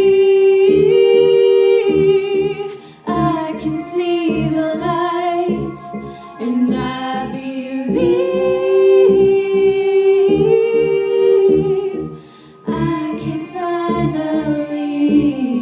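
Female voices singing a cappella, long held notes and wordless vocalising over a steady rhythmic low pulse.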